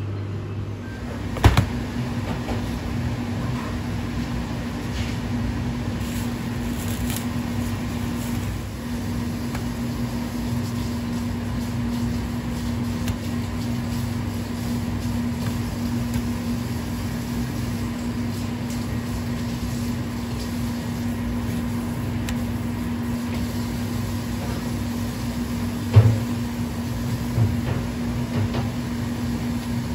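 Steady hum of kitchen machinery with a few sharp knocks of knife work on a plastic cutting board. The loudest knock comes near the end, while raw chicken thighs are being trimmed.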